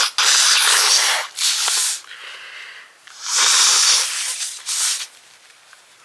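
A woman blowing her nose hard: two long blows, each followed by a shorter one.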